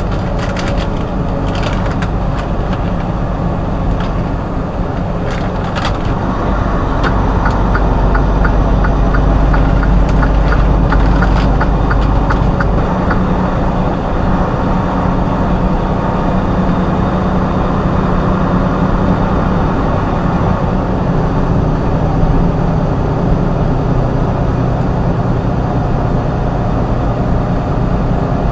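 Truck engine running steadily on the road, louder for several seconds in the middle, with a run of evenly spaced clicks in the middle.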